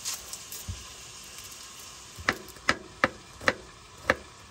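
Meat sizzling as it browns in a hot pot, a faint steady hiss. In the second half come five sharp clicks, about one every half second.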